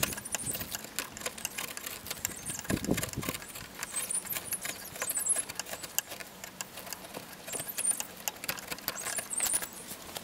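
Wood-carving gouge paring shavings out of the bowl of a wooden spoon: an uneven run of small scratchy crackles and clicks as the edge cuts the wood, with one duller knock about three seconds in.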